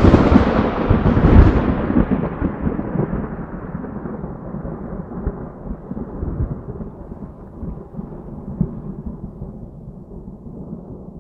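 A thunder clap: a sharp crack with a second burst about a second and a half in, then a long rumble that slowly fades and grows duller.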